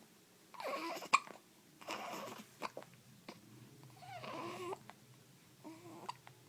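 A baby with the hiccups making short babbling, fussing sounds, broken by sharp little hiccups. The sharpest hiccup comes about a second in.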